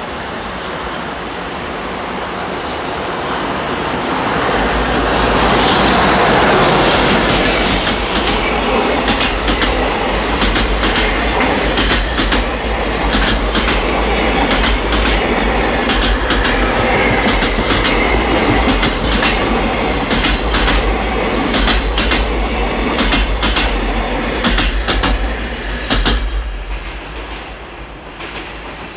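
JR Freight EH500 electric locomotive hauling a long container freight train past: a rumble that builds as it approaches, then a steady run of rhythmic wheel clicks over the rail joints as the wagons go by, with a thin high wheel squeal partway through. It falls away as the last wagon passes near the end.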